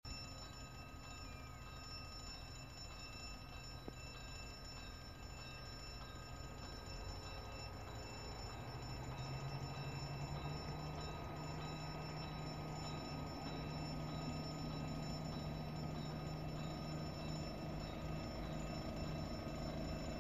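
Level crossing warning bell ringing steadily, while a diesel regional train's engine hum grows louder from about halfway through as the train pulls away from the station and accelerates toward the crossing.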